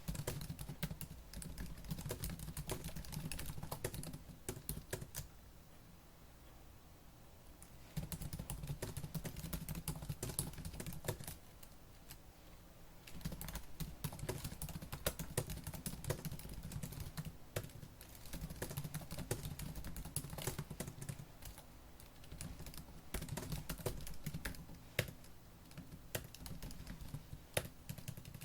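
Fast typing on a laptop keyboard: dense runs of key clicks, broken by two brief pauses.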